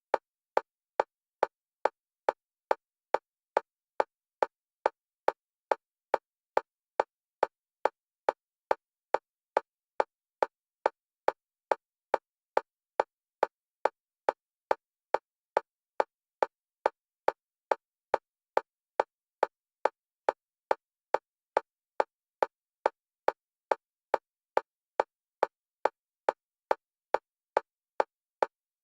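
Metronome click track for EMDR bilateral stimulation: short identical clicks at one pitch, about two and a half a second in a perfectly even, fast rhythm, alternating between the left and right stereo channels.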